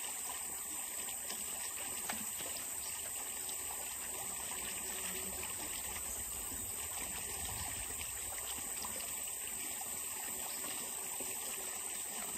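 Steady outdoor ambience: creek water trickling with a continuous high-pitched insect chorus.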